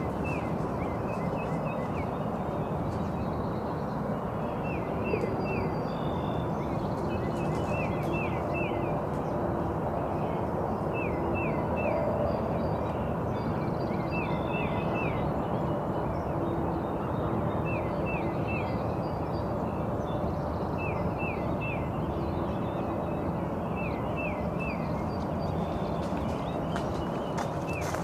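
A songbird sings, repeating short phrases of three to five quick, downward-sliding whistled notes every few seconds over a steady rushing background.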